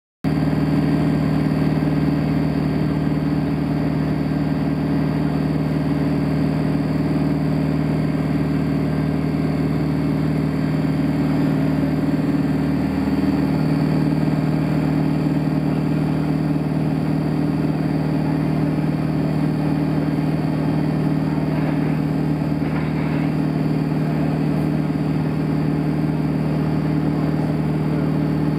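Steady cabin noise inside a Boeing 787-8 Dreamliner while taxiing: engine hum and cabin air, with two steady low droning tones. It begins abruptly just after the start.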